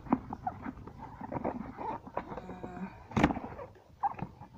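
Cardboard box being opened and handled: flaps rustling and scraping, with light taps, and one sharp, louder knock just after three seconds.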